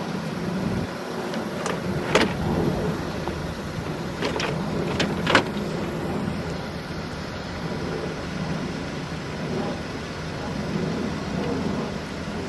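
Steady vehicle running noise, with a handful of sharp clicks or taps clustered in the first half.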